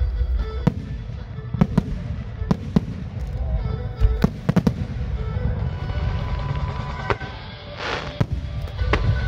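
Aerial firework shells bursting in irregular bangs, some in quick clusters, with music playing underneath. Near the end comes a short hissing burst.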